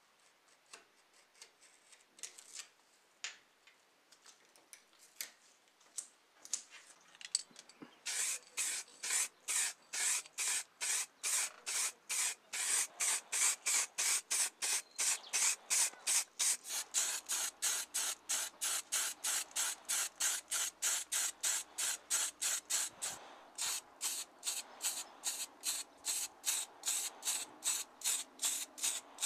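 Aerosol spray paint going on in short, rapid hissing bursts, about three a second, as a model car body and small parts are painted. Before that, about the first eight seconds hold only faint clicks and taps from handling masking tape and a hobby knife.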